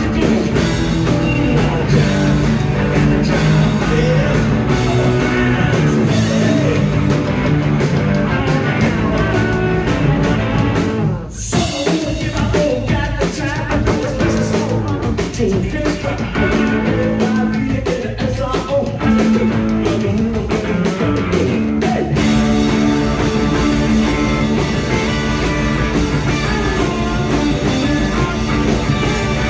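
Live punk-blues rock band playing loud: two electric guitars and drums, with a singer over them. The band stops for an instant about eleven seconds in, then comes crashing back.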